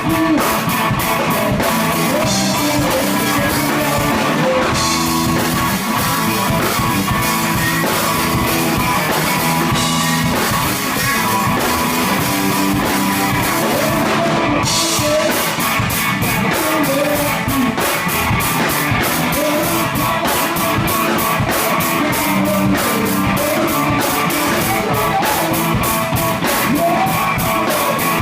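A live rock band playing loudly: electric guitars and drum kit with a singer's vocals, steady drum beats throughout.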